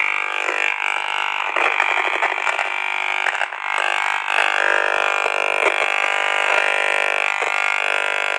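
Gigahertz Solutions HFW high-frequency meter's loudspeaker playing the microwave signal it picks up: a loud, steady electronic buzz of several held tones that waver in pitch, with scattered clicks. It is the audible rendering of a strong 5G field from a nearby antenna, reading close to 2000 microwatts per square metre.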